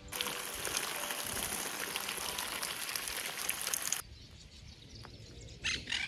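A steady hiss of spraying water that cuts off suddenly about four seconds in, followed by a couple of short bird chirps near the end.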